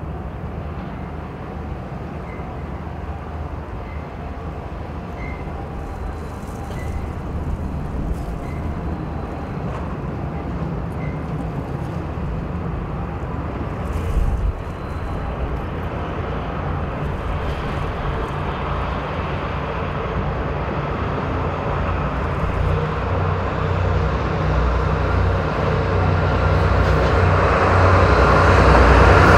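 DD51 diesel-hydraulic locomotive's twin V12 diesel engines working under load as it pulls a freight train away from a station stop and accelerates. A steady low engine drone that grows gradually louder, rising most toward the end as the train draws near.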